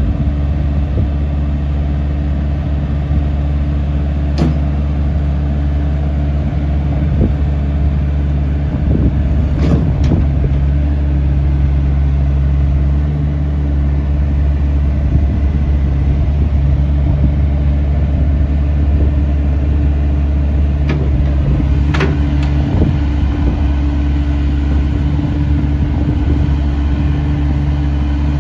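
Doosan DX85R 8.5-tonne excavator's diesel engine running steadily while the machine slews and works its boom, with three sharp knocks spread through.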